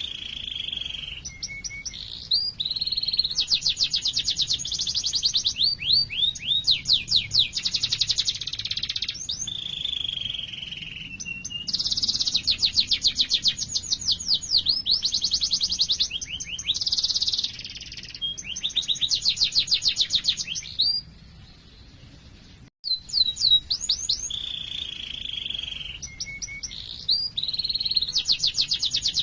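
Domestic canary singing a long song of fast rolling trills and repeated high chirps, going quiet briefly about three-quarters through, then starting the song again.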